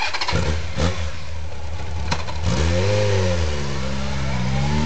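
Honda CB Seven Fifty's air-cooled inline-four, breathing through an aftermarket Cobra exhaust, comes to life with uneven knocks in the first second and then runs. About two and a half seconds in it is revved up and back down as the bike pulls away, and it revs again near the end.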